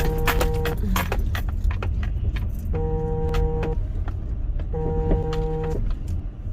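Car cabin sound while driving: steady low road and engine rumble, with a pitched electronic alert tone repeating about one second on and one second off. A flurry of clicking and jingling comes in the first second, with scattered clicks after.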